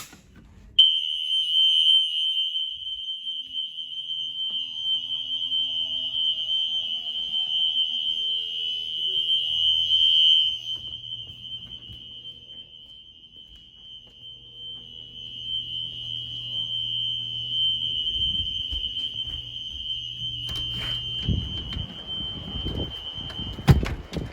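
Two System Sensor SpectrAlert P1224MC fire alarm horns set to continuous, sounding one steady high-pitched horn tone that starts about a second in. Rustling and a sharp click come near the end.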